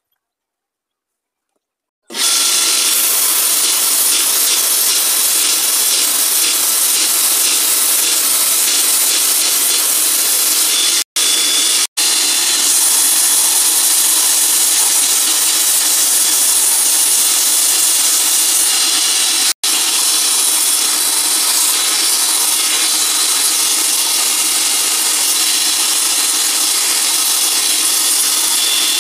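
Homemade belt grinder running, its abrasive belt sanding a wooden knife handle: a loud, steady grinding hiss that starts abruptly about two seconds in and drops out for an instant three times.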